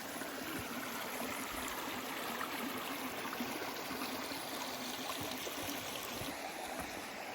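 Creek water flowing in a steady rush.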